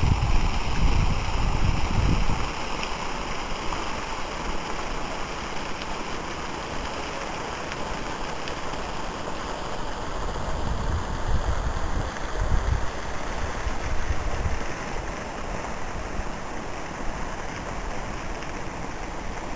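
Wind buffeting the camera's microphone in low rumbling gusts, strongest at the start and again midway, over a steady rushing hiss.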